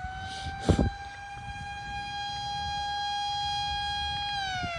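Siren sounding a steady tone with overtones, then starting to wind down in pitch near the end. A short knock comes about a second in.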